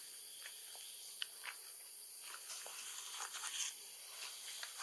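Faint forest ambience: a steady high insect hiss with scattered light rustles and clicks of leaves and twigs as a macaque climbs the tree, busiest about three seconds in.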